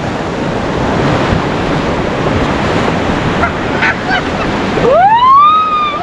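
Whitewater rapids rushing around an inflatable raft, a loud steady wash of churning water. Near the end a rafter lets out one long shout that sweeps up in pitch and holds high.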